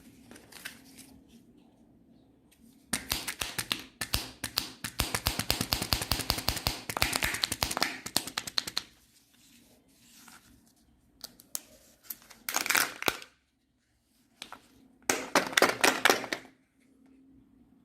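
Kinder Joy eggs being unwrapped and opened by hand: dense runs of rapid crinkling and crackling from the wrappers and plastic egg shells. One long run fills the first half, and two shorter bursts come later.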